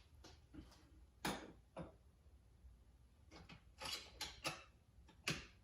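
Faint, scattered light clicks and clacks of an outboard motor's throttle linkage being worked by hand, checking whether it was put together too tight. There are single clicks early on, a quick cluster about four seconds in, and one more near the end.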